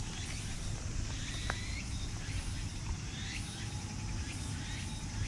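Outdoor ambience: a steady low rumble with faint high chirps repeating throughout, and a small click about a second and a half in.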